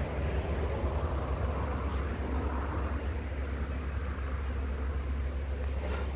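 Honeybee swarm buzzing steadily as it is hived, the bees clustered on a frame being moved into the hive box. A steady low rumble lies underneath, with a faint regular ticking and two light clicks.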